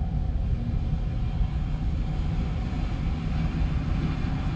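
Diesel engine of a harvest machine (combine or grain-cart tractor) running steadily under a working load, a low even drone with no breaks. It is running good, with no misfire or stumble.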